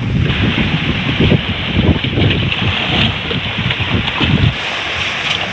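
Wind gusting across the microphone in irregular low rumbles that ease near the end, over the steady hiss and slosh of shallow seawater as a person wades through it knee-deep.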